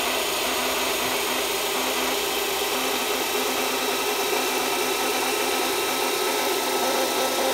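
Altiprime 12-volt electric hydraulic jack's motor-driven pump running steadily while lowering the car, an even hum.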